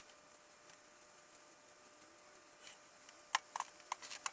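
Sharp clicks and light knocks of painted cast-iron vise parts being handled and set down on a wooden bench: a faint click near the start, then a quick cluster of about six in the last second.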